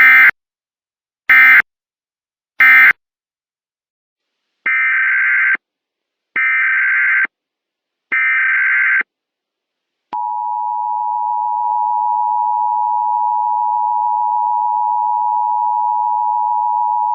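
Emergency Alert System signalling: three short data bursts of buzzy modem screech closing the previous alert, then three longer header bursts of the same sound, then from about ten seconds in a loud, steady two-tone attention signal announcing the next alert.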